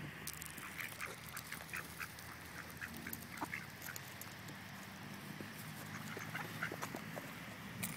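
Mallard ducks quacking faintly in short, scattered calls, with small ticks among them.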